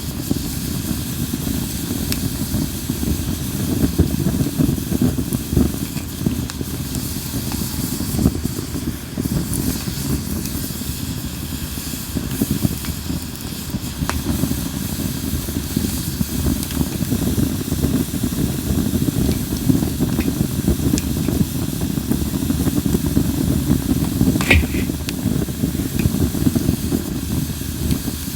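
Japanese linden (shinanoki) wood burning in a campfire: a steady low rush and hiss of the flames, with scattered crackles and one sharper pop near the end.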